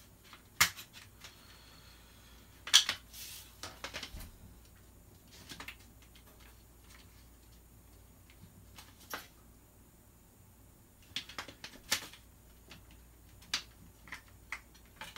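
Irregular clicks, knocks and light clatter of an airsoft M16 bottom handguard being worked against the rifle as it refuses to seat. The sharpest knocks come a little under a second in and about three seconds in.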